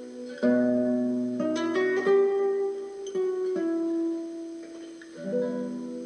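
Background music: a plucked string instrument playing slow chords and held single notes, with a fresh chord struck about half a second in and again near the end.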